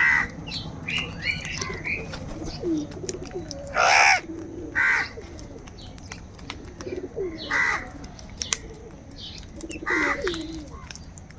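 Crows cawing: about five loud, harsh single caws a few seconds apart, with softer, lower calls in between.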